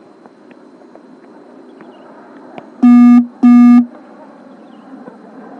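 Two short, very loud horn blasts, each about half a second long, on one low buzzy tone, close together about three seconds in, over a faint outdoor background with a few light knocks.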